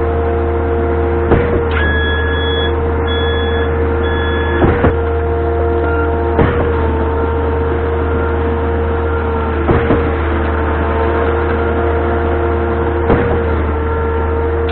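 Concrete mixer truck running, heard from inside the cab: a steady low engine hum under a constant whine, with a few sharp knocks spread through. A high on-off beeping tone sounds several times about two to four seconds in.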